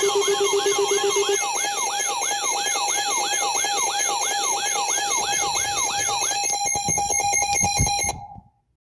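Electronic warning siren in a fast yelp: a falling wail that repeats about three times a second over a bed of steady alarm tones. A low tone drops out about a second and a half in, and the whole sound fades out about eight seconds in.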